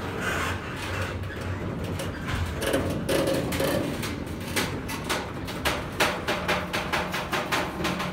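Freight wagons loaded with tank containers rolling slowly past: a run of metallic clicks and knocks from wheels over rail joints and the running gear, coming faster and denser in the second half. A brief low tone sounds about three seconds in.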